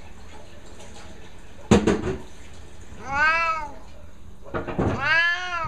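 Siamese cat giving two long, loud meows that rise and fall in pitch, about three and five seconds in. A short sharp noise comes about two seconds in.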